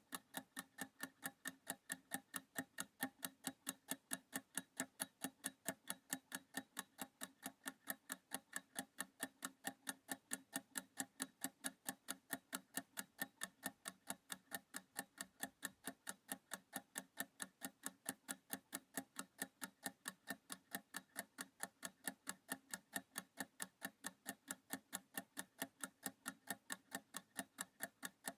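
Clock ticking sound effect counting down a timer: fast, perfectly even ticks.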